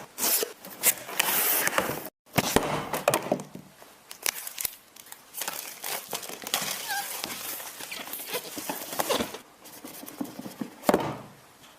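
MacBook Pro packaging being unwrapped by hand: irregular crinkling, rustling and tearing with small knocks and clicks, cutting out briefly about two seconds in.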